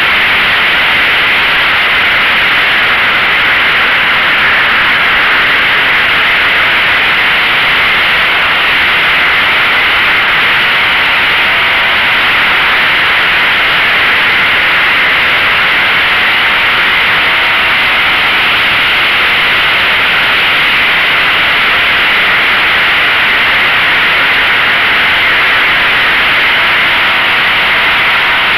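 Steady, loud rush of airflow over a camera mounted on a flying RC model plane, with the faint even hum of its motor and propeller under the noise.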